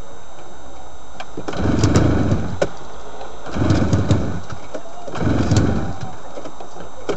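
Recoil starter pulls cranking a flooded two-stroke snowmobile engine, three pulls about two seconds apart, each turning the engine over briefly without it catching. The engine is flooded with fuel and is being cranked over to clear it out.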